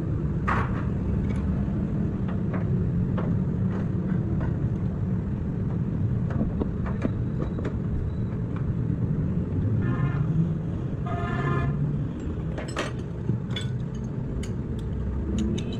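Steady low rumble of vehicle engines and traffic with scattered light clicks and knocks. A vehicle horn toots briefly about ten seconds in, then again for a little longer just after eleven seconds.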